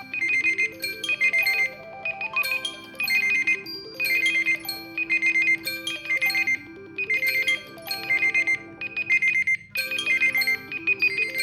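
Smartphone alarm tone playing: a synthetic melody of rapid high beeps in short repeating groups over lower notes, with a rising run of notes and a long held note in the middle.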